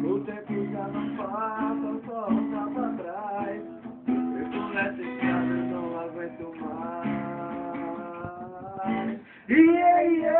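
Acoustic guitar strummed in chords, an instrumental break between sung verses of a love song.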